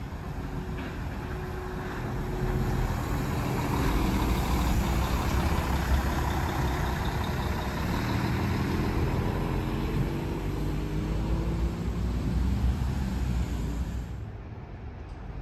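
Diesel engine of a large white coach driving close past, its pitch rising as it accelerates away. The sound drops away suddenly near the end.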